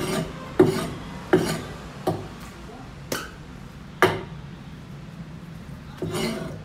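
About six sharp knocks and clatters, irregularly spaced, from a butcher working a freshly slaughtered chicken and a knife over a metal drum.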